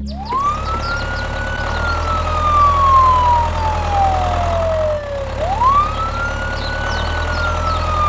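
Ambulance siren wailing in two slow cycles, each a quick rise in pitch followed by a long slide back down, over a steady low hum.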